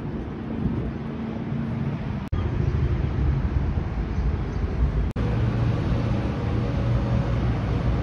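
City street traffic noise, with the steady low hum of vehicle engines running close by. The sound drops out for an instant twice.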